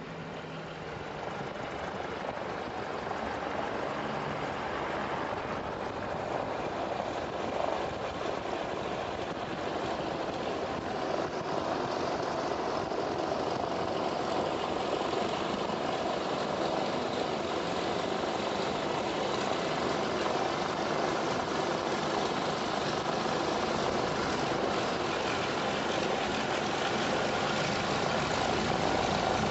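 Boeing Stearman biplane radial engine and propeller idling, a steady drone that slowly grows louder.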